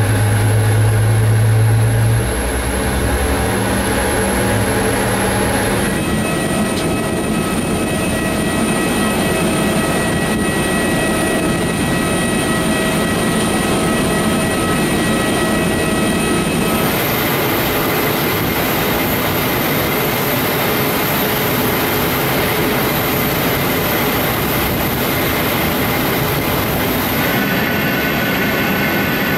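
Steady whine and roar of aircraft turbines: several high steady tones over a rushing noise, with the set of tones shifting abruptly a few times. A deep hum sounds underneath at the start and stops after about two seconds.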